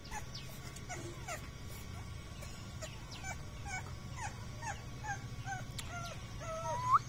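French bulldog puppy whimpering: a run of short, high whines that fall in pitch, about two a second, ending in a longer whine that rises near the end. A steady low hum runs underneath.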